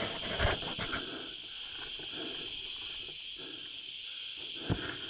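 Steady high-pitched insect chorus, a continuous buzz, with a few dull thumps about half a second in and near the end.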